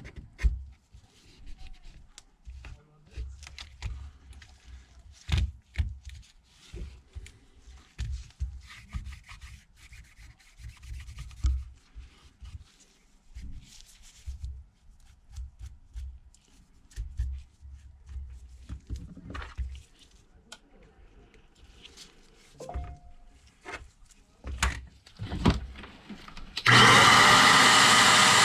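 Old adhesive being scraped off a Samsung Galaxy Note 9's frame, with irregular short scrapes and light knocks. Near the end an air blower starts with a loud, steady hiss, blowing the frame clean.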